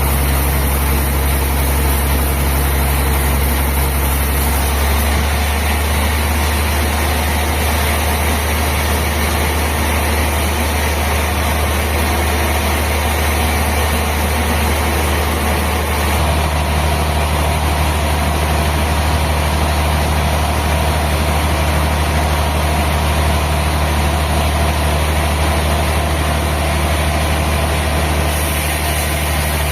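Sawmill machinery running steadily: a loud, continuous low hum with a broad mechanical noise over it. The sound changes character slightly about five seconds in and again about sixteen seconds in.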